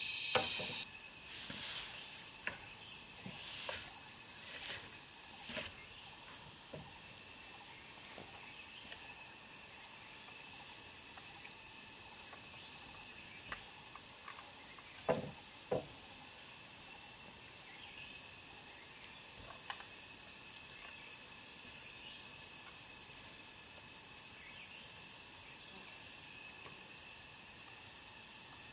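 Steady high-pitched insect chorus from the forest, with sharp hollow knocks of bamboo poles being handled: one just after the start and two close together about halfway through, plus a few lighter taps.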